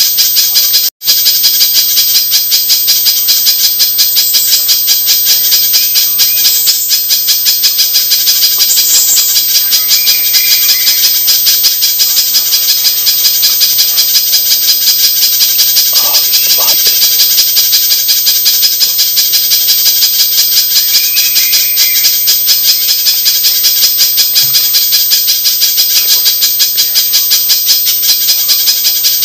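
Spiderhunter (pijantung) calling: a loud, unbroken run of sharp, high, rapidly repeated notes, many a second, from a looped bird-lure recording. It cuts out for an instant about a second in.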